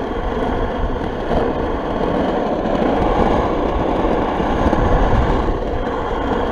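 Steady rolling rumble of a Razor RipSurf caster board's wheels on asphalt, mixed with wind buffeting the microphone as it rides downhill.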